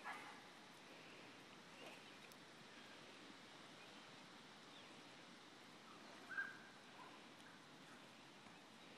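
Near silence: faint outdoor ambience, with one short high-pitched call about six seconds in.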